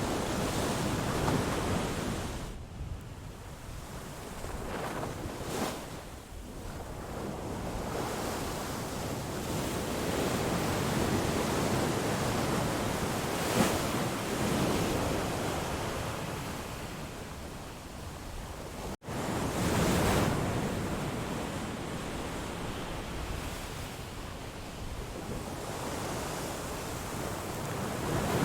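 A steady rushing sound that swells and fades every few seconds, with a sharp tick about 13 seconds in and a momentary cut-out about 19 seconds in.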